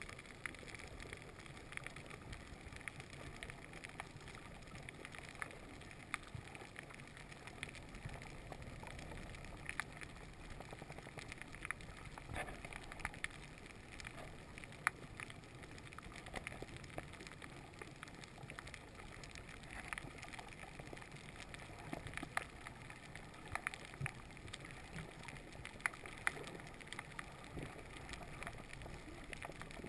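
Underwater reef ambience: a faint, steady hiss with scattered sharp clicks and crackles.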